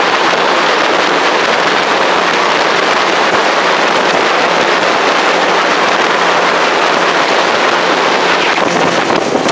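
Steady, loud rush of wind and water as a small fishing boat runs across open water, with a faint steady engine hum underneath.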